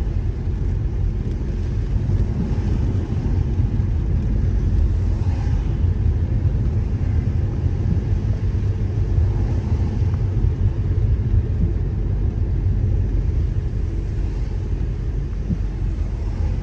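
Car driving on a wet road, heard from inside the cabin: a steady low rumble of road and engine noise.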